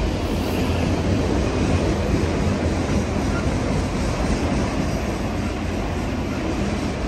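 A Union Pacific freight train of autorack cars rolling past, with the steady noise of its wheels on the rails.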